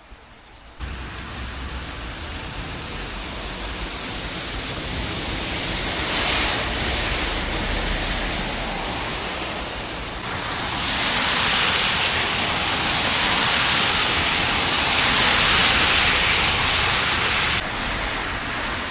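Heavy rain falling, a steady rushing hiss with a low rumble underneath. It starts abruptly about a second in, swells louder twice, and eases back near the end.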